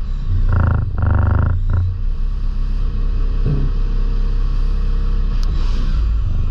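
DMG Mori NLX2500SY CNC turn-mill lathe machining a small component: a run of short, repeated cutting bursts for about the first two seconds, then a steady low running rumble.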